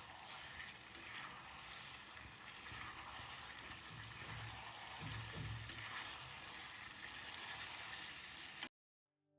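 Food sizzling and frying in a pan, an even crackling hiss that cuts off suddenly near the end.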